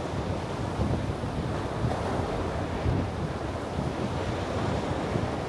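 Ocean surf breaking and washing onto the shore, with wind buffeting the microphone in a steady low rumble.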